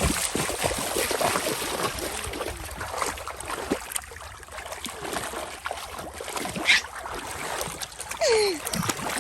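Water splashing and sloshing in shallow muddy water as fish are grabbed at by hand, with irregular small splashes throughout. A brief high squeak comes about two-thirds of the way through, and a short falling cry near the end.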